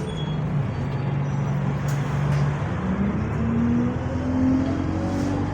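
Bus drivetrain running with a steady low hum, then from about halfway through a gearbox whine that rises steadily in pitch as the bus gathers speed in first gear.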